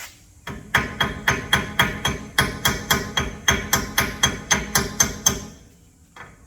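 Hammer striking a rusted, stuck brake caliper pin in quick, steady metal-on-metal blows, about four a second with a ringing tone, stopping shortly before the end.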